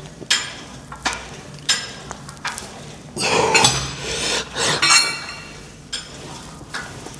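Metal gym weights clinking and clanking, the ringing knocks of steel plates striking each other about once or twice a second, with a louder run of clanks a little past the middle.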